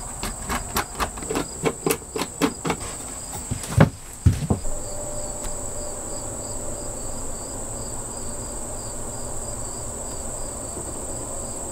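Light clicks and knocks of a copper pipe curtain rod being shifted in its copper strap brackets, a quick run of them over the first four seconds ending in two louder knocks. Under it, and alone after, a steady high insect drone with a regular chirp about three times a second.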